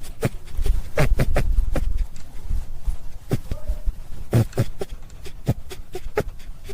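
A rabbit making a series of short, irregular clicks and knocks, with a low rumble between about half a second and two seconds in.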